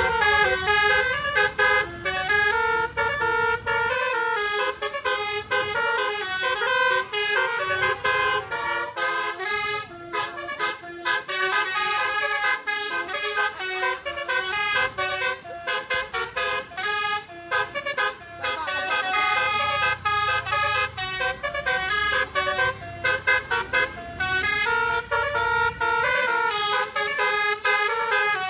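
Telolet multi-tone bus horn playing a rapid tune of short notes that jump up and down in pitch, with a few brief pauses.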